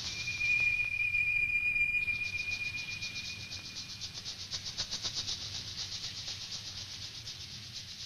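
A sparse passage of an electronic film score: a thin, held high tone that stops about three and a half seconds in, over a fast, evenly pulsing high hiss much like a cricket's trill, slowly fading.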